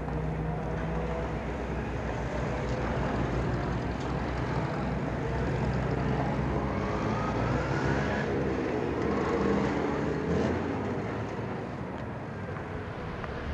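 A motor vehicle's engine running with steady road noise, its pitch rising as it speeds up about midway through.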